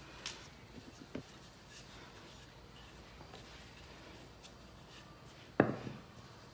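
Quiet handling of dough and kitchen utensils, with faint clicks and rubbing, and one sharp knock of something set down on the counter about five and a half seconds in.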